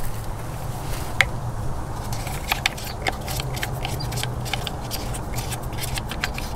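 Small clicks and taps of hands and a screwdriver handling the plastic housing of a Pentair pool valve actuator, growing more frequent from about two seconds in, over a steady low hum.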